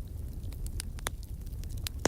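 Fireplace fire crackling: scattered sharp pops and snaps over a steady low rumble, with a louder pop about a second in and another near the end.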